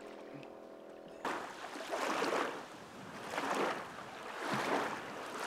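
Water lapping in repeated swells, about one every second and a quarter. Before that, a steady hum cuts off abruptly about a second in.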